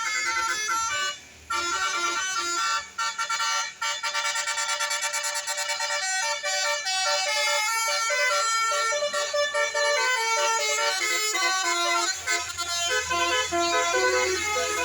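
Telolet horn on a tour bus: a set of musical air horns playing a fast run of changing notes like a tune, with a low rumble coming in near the end.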